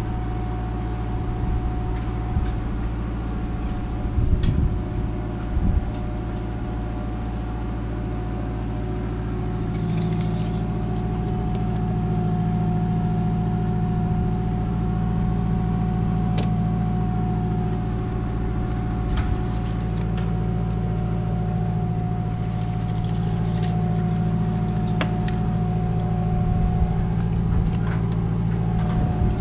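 A machine running steadily nearby with a constant low hum, a little louder from about ten seconds in, with a few sharp clicks scattered over it.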